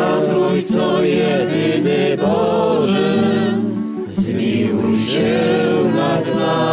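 A group of people singing a Catholic litany in Polish, in unison, over a steady guitar accompaniment.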